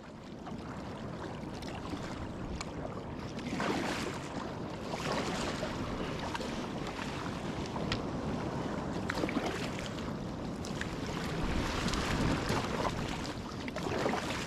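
Sea-kayak paddling through choppy water: water rushing and splashing along the hull, swelling with each paddle stroke every couple of seconds.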